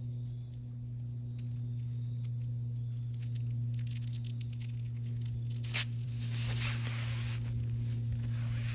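A Velcro hook-and-loop strap being threaded through its buckle and pulled around a tree trunk, with short scratchy rasps of the strap. There is a sharp click just before six seconds in, then a longer rasp, over a steady low hum.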